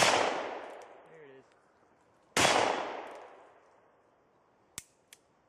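Two shots from a Smith & Wesson Mountain Light revolver firing .357 loads, about two and a half seconds apart, each leaving a long echoing tail. Two faint clicks come near the end.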